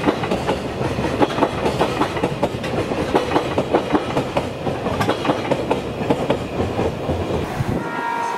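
Freight container train passing: the wagons' wheels clatter over the rail joints in a steady clickety-clack over the rumble of the rolling train. The sound cuts off abruptly near the end.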